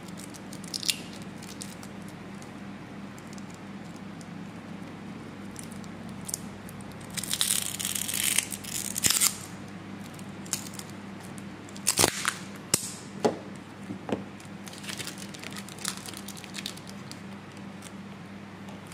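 Smartphone parts being handled during disassembly: a stretch of crinkling and tearing, like adhesive tape or film being peeled, about seven to nine seconds in, then several sharp clicks and lighter ticks of the plastic and metal frame. A low steady hum sits underneath.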